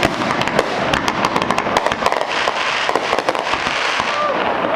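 Aerial fireworks display: shells bursting overhead and crackling, a dense stream of sharp pops in quick succession over a continuous rumbling haze.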